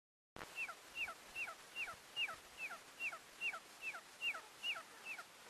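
A bird calling over and over: about a dozen short, falling, whistled notes, a little over two a second, starting suddenly and stopping shortly before the end.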